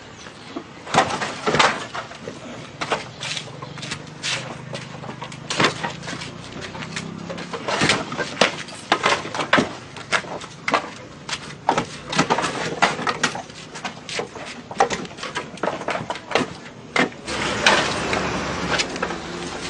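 Fired clay bricks clacking and knocking together as they are handled, tossed and stacked, in irregular sharp knocks. Over the last two seconds a steady rushing noise comes up under them.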